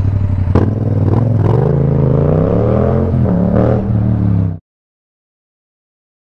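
Yamaha MT-07 parallel-twin engine running through an Akrapovic exhaust, with a sharp click about half a second in and the engine note rising and falling. A little past four and a half seconds the sound cuts off abruptly to dead silence.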